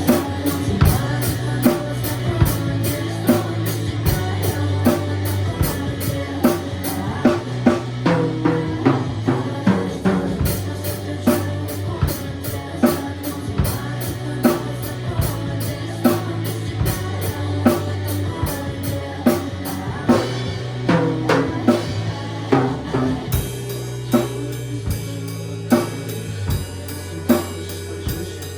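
A drum kit played to a rock song: kick drum, snare and cymbals in a steady beat over the song's backing track, with the bass line running underneath. About 23 seconds in the cymbal pattern changes.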